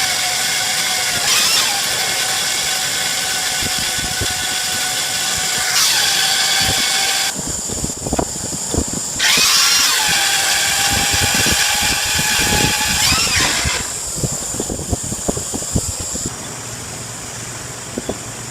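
A power tool running with a high whine in two long runs, the first about seven seconds and the second about four and a half, its pitch dipping briefly within each run. Metal knocks and clicks fall between and after the runs.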